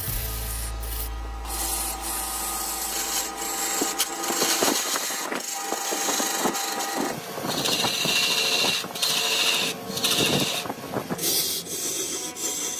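Hand-held scraping tool cutting into a large log spinning on a wood lathe: a continuous rasping scrape of steel on wood, with louder bursts of cutting in the second half.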